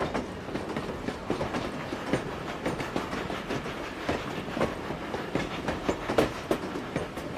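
Train wagons rolling along a track: a steady rumble with irregular clicking and clacking of the wheels over the rail joints, several clicks a second.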